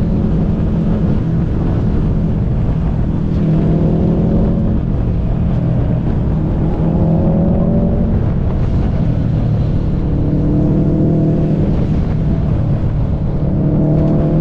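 Car engine pulling hard through a run of corners: the pitch climbs and falls back four or five times as it accelerates and lifts, over a steady low rumble of road and wind noise.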